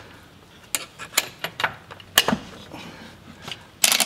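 Hand tools on a seat-belt harness mounting bolt: a string of separate metal clicks and taps as a wrench and a ratchet wrench are fitted onto the bolt and lock nut, with a brief louder burst of noise near the end.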